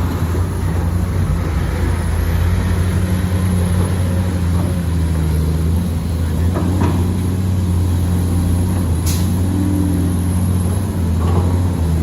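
Heavy diesel truck engine running steadily close by, a deep continuous hum, with a few brief sharp clicks or knocks.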